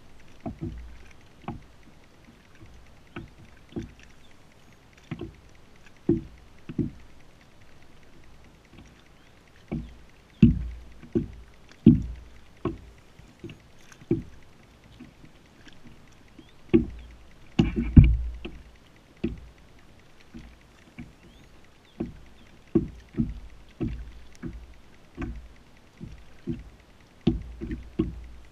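Small waves slapping against a plastic kayak hull: irregular low knocks about once a second, with a louder cluster about two-thirds of the way through.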